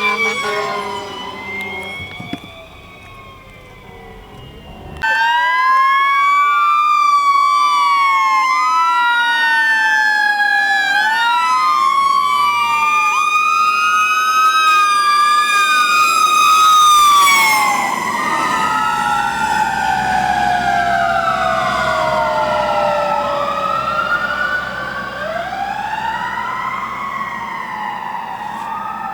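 Several fire truck sirens wailing together, their pitches rising and falling out of step with one another. After a quieter stretch, the sirens cut in loudly about five seconds in.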